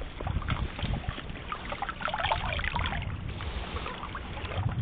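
Shallow water sloshing and trickling as a dip net for shrimp is swept through it among stones, with many small splashes and a low rumble underneath.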